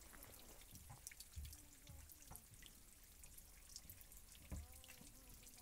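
Near silence: a faint low rumble with a few soft thumps, scattered faint ticks and a few faint arching tones.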